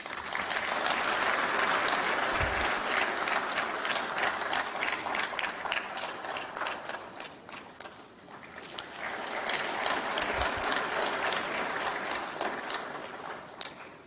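Audience applauding: a long round of clapping that swells, dips briefly past the middle, rises again and dies away near the end.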